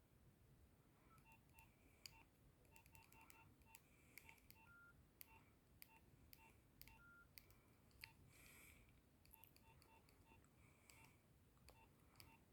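Nokia 6101 keypad tones: short faint beeps in an irregular string, one per button press, with light clicks of the keys. Twice a slightly longer, higher beep sounds.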